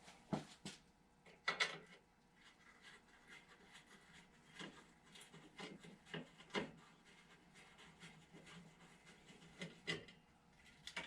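Faint scattered clicks, taps and rubbing from headlight parts and screws being handled and worked loose as the headlight comes out, with a few sharper knocks near the start.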